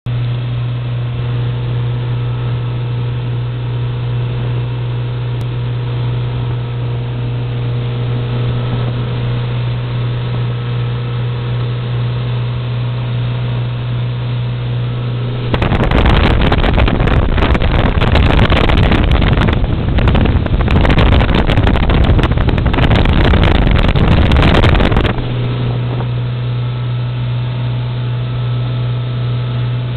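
Motorboat engine running with a steady low drone. From about halfway through, a loud rushing noise covers it for roughly ten seconds, then the drone is heard alone again.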